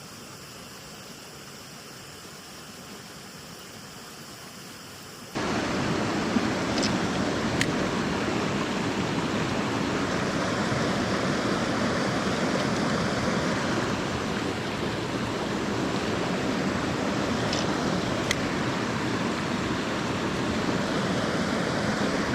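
A mountain stream's rushing water: a faint hiss at first, then about five seconds in the rushing comes in much louder and holds steady, with a few faint clicks over it.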